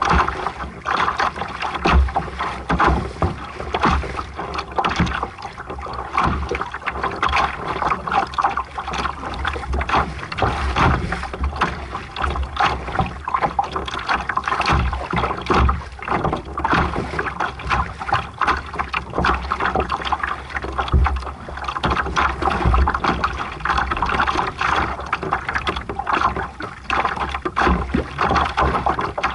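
Water rushing and splashing irregularly against a sailing yacht's hull while it is under way, with gusts of wind rumbling on the microphone.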